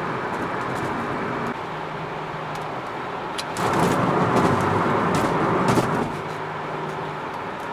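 Steady road, tyre and engine noise inside a car's cabin cruising at highway speed. The noise grows louder and brighter for about two seconds in the middle, then settles back.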